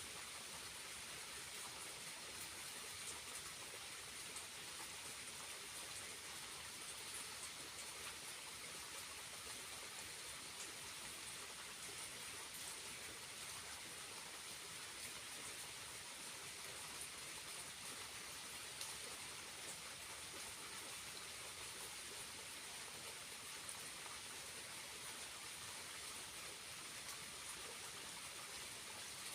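Faint, steady hiss of water falling and splashing at a small waterfall, kept running by recent rains.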